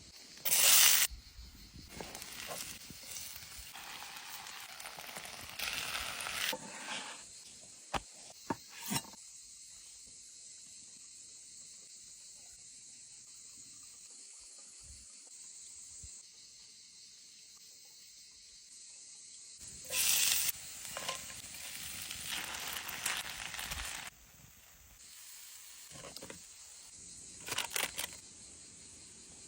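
Lamb chops sizzling as they cook: a steady high hiss with several short, louder surges of sizzling.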